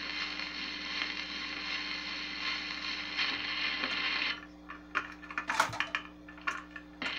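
78 rpm shellac record on a 1961 Arvin record changer: hiss and crackle from the surface of the run-out groove, then, a little past four seconds in, a couple of seconds of clicks and clatter from the changer mechanism cycling to the next record. The surface hiss returns near the end as the needle lands on the new side.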